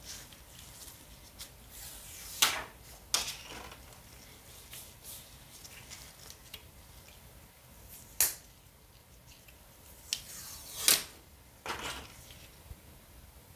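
Unboxing handling sounds from a smartphone and its packaging handled by gloved hands: a handful of sharp clicks and taps, the loudest about two and a half, eight and eleven seconds in, with faint ticks between.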